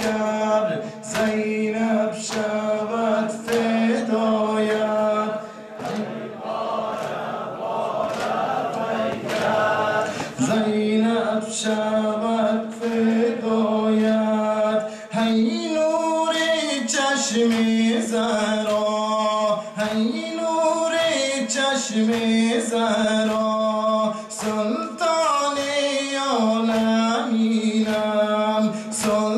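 Men's voices chanting a Muharram nawha (lament) together, with regular sharp slaps of chest-beating (matam) keeping time, a little under two a second.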